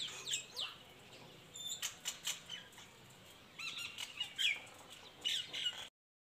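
Birds chirping: short high calls with gaps between them, and a few clicks. The sound cuts off suddenly near the end.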